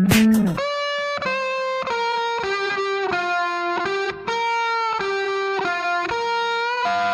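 Background music: the drums drop out about half a second in, leaving a distorted electric guitar playing a slow line of held notes.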